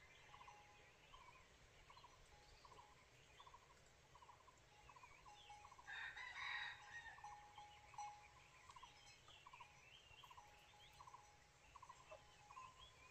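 Near silence, with faint chirping repeating about twice a second. About six seconds in comes one faint, brief crow of a red junglefowl.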